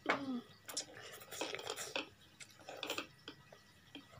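Ramen noodles being slurped and chewed in several noisy bursts, opening with a short falling vocal sound, with light clicks of utensils against the bowl.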